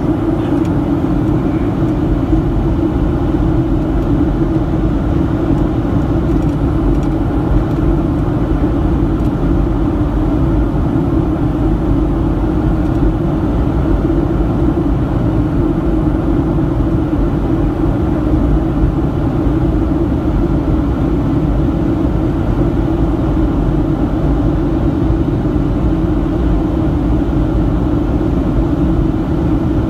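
Steady cabin noise of a Boeing 737-700 in descent, heard from a seat over the wing: engine and airflow noise with an even hum, holding one level throughout.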